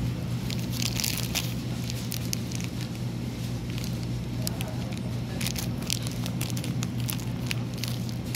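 Crackling, rustling handling noise from the phone rubbing against clothing, made of many small sharp clicks over a steady low hum.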